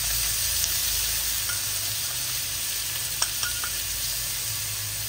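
Shelled baby clams frying in hot oil in an aluminium wok: a steady sizzle, with a few light clicks about three seconds in.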